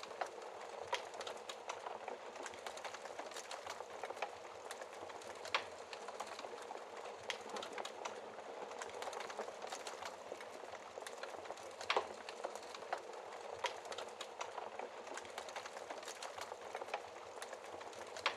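Wood fire crackling steadily in a fireplace, with a continuous hiss of small snaps and a few louder pops, the loudest about twelve seconds in.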